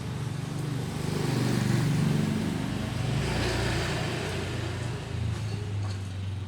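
Honda Supra Fit motorcycle engine running, revved up about a second in and then settling to a steady idle, freshly rebuilt after an oversize cylinder bore.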